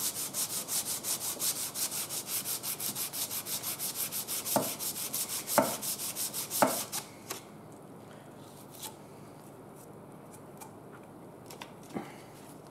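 400-grit sandpaper wrapped around a flat honing block, rubbed back and forth with oil over the face of a cast hydrostatic transmission part held in a vise, about four strokes a second, to sand scoring grooves out of the running surface. A few louder knocks come about a second apart near the end, the sanding stops about seven seconds in, and only a few faint clicks follow.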